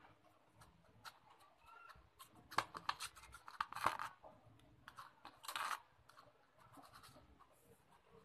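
A cat's claws scratching and scuffing on a cloth-covered table as it paws about: a run of scratchy rustles and clicks from about two to six seconds in.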